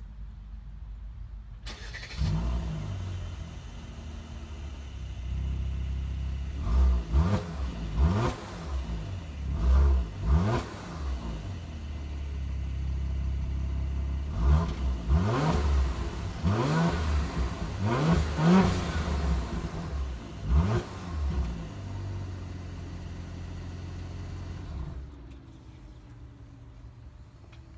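Mercedes-AMG E43's 3.0-litre twin-turbo V6 exhaust: the engine starts about two seconds in, idles, then is revved about nine times, each rev rising and falling. It settles back to idle and cuts off about 25 seconds in.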